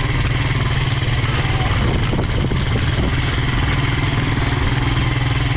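Honda Rancher ATV's single-cylinder engine running steadily as the quad rolls over a rocky riverbank.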